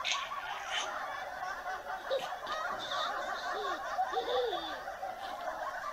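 Baby laughing, a continuous run of short laughs with a few drawn-out notes that rise and fall in pitch.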